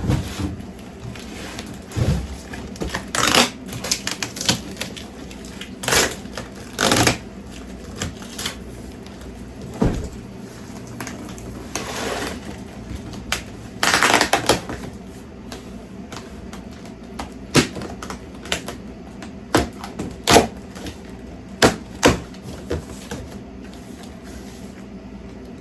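Opening and handling a large cardboard box that holds a metal fire pit ring: irregular knocks, clicks and short scraping rustles of cardboard. The longest scrape comes about halfway through.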